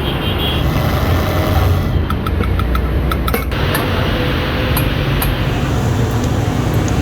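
An engine running steadily with a low rumble; a quick run of light clicks comes about two to three and a half seconds in.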